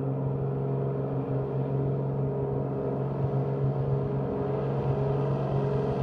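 Propeller engines of a flying boat running in a steady drone as it skims across the water at speed.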